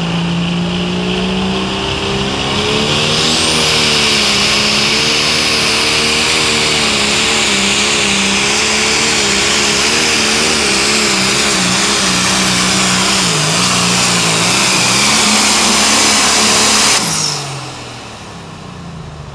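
Turbocharged diesel engine of a John Deere limited pro stock pulling tractor running flat out under the load of the pulling sled, with a high turbo whistle over it and the engine speed wavering up and down. About 17 seconds in the engine drops off sharply and winds down.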